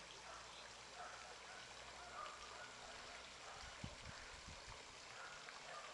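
Faint outdoor riverside ambience: a steady low hiss with a few faint bird calls and some low bumps about four seconds in.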